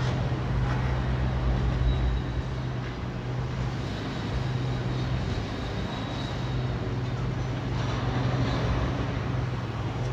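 A heavy engine running steadily at a constant low pitch, over a background of street traffic.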